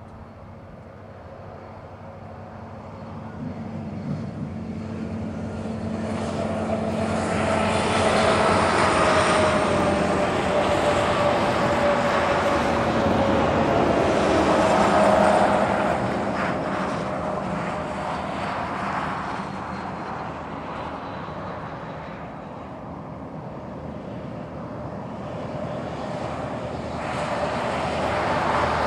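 A passing engine drone swells and fades over about fifteen seconds, its whine slowly falling in pitch as it goes by. A second swell begins near the end.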